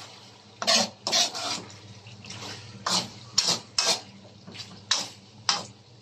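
Metal ladle scraping and knocking against a metal wok while stirring chunks of pork and potato in thick sauce, in a series of separate strokes about every half second to a second.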